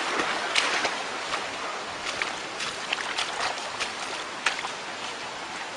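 Steady rush of flowing river water, with a few small ticks scattered through it.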